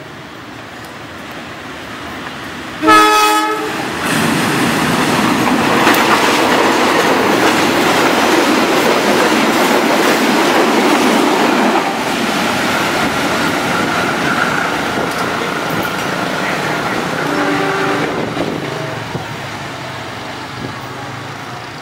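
A CC201 diesel-electric locomotive gives a short, loud horn blast about three seconds in, then passes close by hauling a train of tank wagons: a dense engine and wheel-on-rail clatter. After the locomotive passes, the clatter eases, a thin steady whine runs for a few seconds, a brief fainter hoot sounds, and the noise fades as the train moves away.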